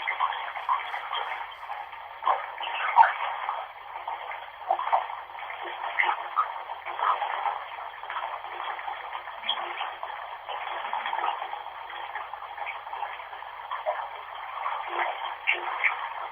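Running bathwater heard as a steady, thin, tinny rush with no bass, full of quick irregular flickers, played back as a medium for spirit voices.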